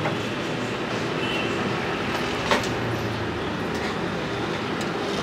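Steady low mechanical rumbling, with one sharp clink of metal about two and a half seconds in.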